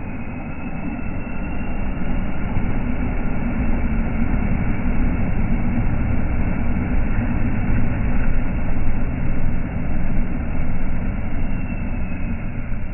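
Ford Ranger 2.2 diesel pickup's engine running at low revs as the truck crawls over rocks and mud, a steady low sound that grows a little louder about two seconds in.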